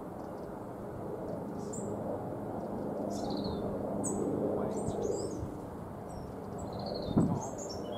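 Small birds chirping and twittering, over the low hum and rumble of a distant approaching train that swells through the middle. A single short thump a little after seven seconds is the loudest sound.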